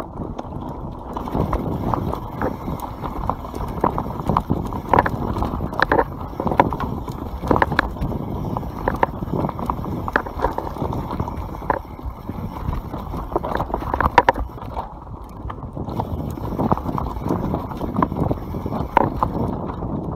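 YT Capra enduro mountain bike riding fast down a dirt forest trail: a steady rumble of tyres on dirt and the frame rattling, with frequent irregular sharp knocks as it hits roots and rocks.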